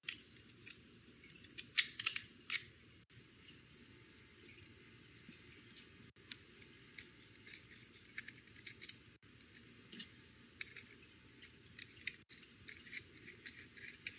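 Small clicks and light scrapes of a rotary cutter being handled as its blade is fitted back on, with a cluster of louder clicks about two seconds in and scattered faint ticks after.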